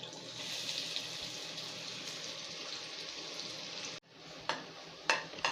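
Chopped onions sizzling steadily in hot oil in a wide kadai. After a sudden break about four seconds in, a spatula clinks against the pan a couple of times while stirring.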